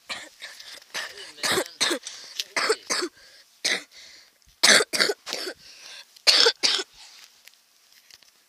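A person coughing in a string of short, harsh bursts, mostly in quick pairs.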